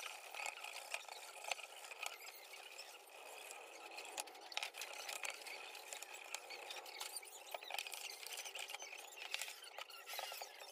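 Toothbrush bristles scrubbing cleaner over the solder side of a speaker amplifier's circuit board, faint scratchy brushing with many small irregular clicks, cleaning corroded solder joints.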